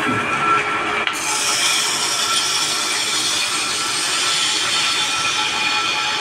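Metal-turning lathe machining the face of a paper plate die: the machine runs with a steady whine, and about a second in the cutting tool bites into the die face with a steady high scraping hiss. This is the die being cut down to reduce its too-deep depth.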